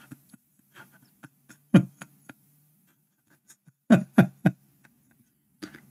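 Scattered short clicks and taps, three close together about four seconds in, over a faint low hum.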